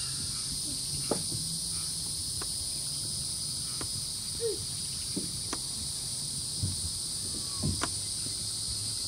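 Steady evening insect chorus, a high, even trilling in two bands, with a few faint scattered clicks and knocks.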